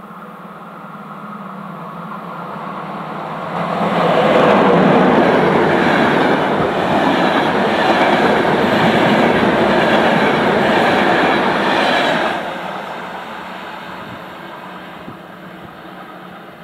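A passenger train passing close at speed. Its rolling noise builds as it approaches, turns suddenly loud as the locomotive and coaches go by, with steel wheels running over the rails for about eight seconds, then drops away and fades as the train recedes.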